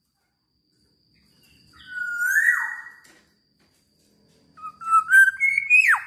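Black-naped oriole giving clear whistled notes: a rising whistle about two seconds in, then a run of short whistles ending in a sharp falling note.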